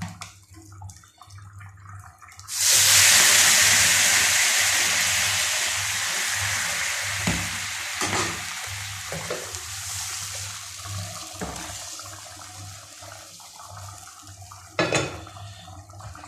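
Hot oil in a cooking pan sizzling as liquid hits it. The loud hiss starts suddenly about two and a half seconds in and dies down slowly over the next ten seconds.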